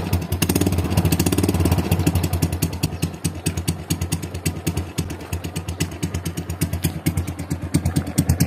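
Honda Wave Alpha 110's single-cylinder four-stroke engine idling through a newly fitted Charama 9 open-pipe exhaust just after starting: a noisy, evenly pulsing exhaust note, not revved. It runs a little harder for the first couple of seconds, then settles into a steady idle.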